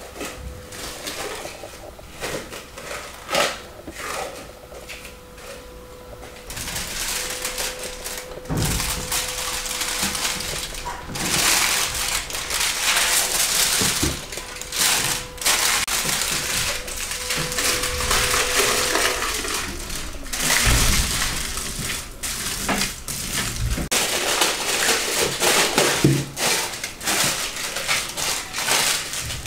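Aluminium foil crinkling and rustling as a sheet is pressed and folded into a glass bowl to line it, with a few sharp knocks in the first seconds.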